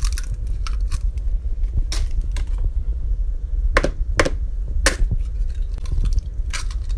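Eggs being cracked on a bowl and dropped into a thick mash of black and pinto beans, with a utensil knocking in the bowl: scattered sharp taps, about six in all, over a steady low rumble.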